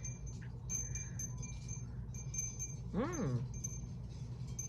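Light chime ringing over a steady low hum, with a short hummed 'mm' about three seconds in that rises and then falls in pitch, made while chewing a soft chocolate chew.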